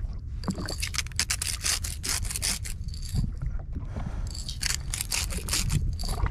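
Irregular scraping and rubbing handling noises over a steady low rumble.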